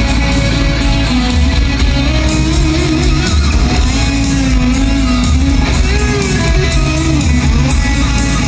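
Live hard rock band playing loud in an arena, an electric guitar lead with bending notes over bass and drums.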